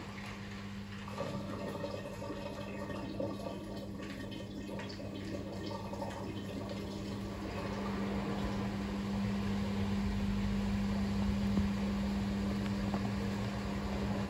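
Fisher & Paykel WM1480P front-loading washing machine pumping out water as its intermediate spin begins: a steady hum with gurgling, rushing water, growing louder about halfway through.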